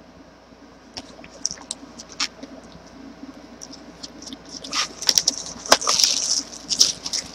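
Trading-card box and pack wrappers being handled and opened: scattered clicks and crinkling rustles of cardboard and foil packaging, sparse at first and busier from about five seconds in.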